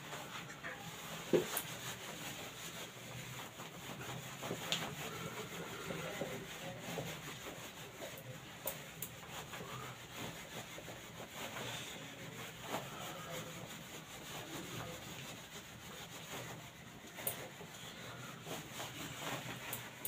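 Faint rubbing of a handheld duster wiped back and forth over a whiteboard, erasing marker writing, with a few light knocks.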